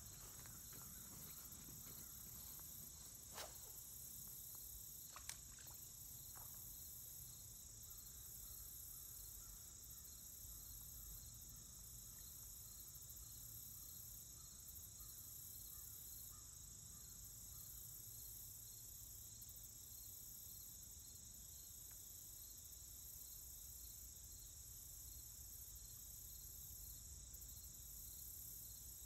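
Faint, steady chorus of crickets trilling, with two short clicks a few seconds in.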